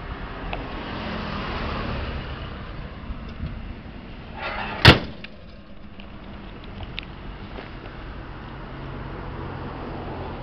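The steel hood of a 1968 Ford Mustang coupe slammed shut about five seconds in: one sharp, loud bang, just after a brief rush of noise as it comes down. A steady low rumble runs underneath.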